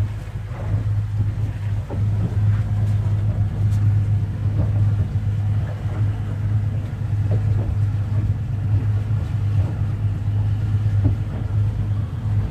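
Motorboat engine running under way with a steady low drone.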